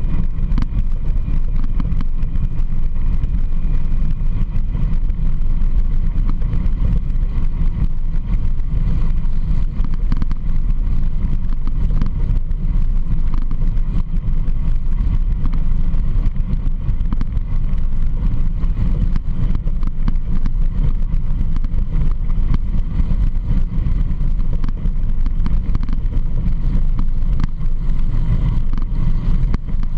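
Off-road vehicle engine running at a steady cruise on a gravel trail, a continuous low rumble with road noise that holds without a break.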